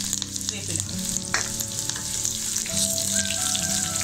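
Sliced shallots, curry leaves and dried red chillies sizzling in hot coconut oil in a non-stick kadai, with a spatula stirring and scraping through them in scattered clicks. This is the tempering (thalippu) being fried for a curry.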